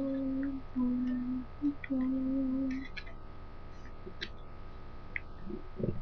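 A person humming four short, steady low notes over the first three seconds. Soft crinkles and taps of origami paper being folded by hand run underneath and continue after the humming stops.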